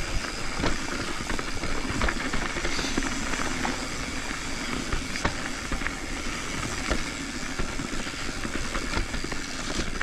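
Full-suspension mountain bike rolling down a dirt singletrack: a steady rush of tyre and wind noise, broken by frequent short knocks and rattles as the bike goes over bumps.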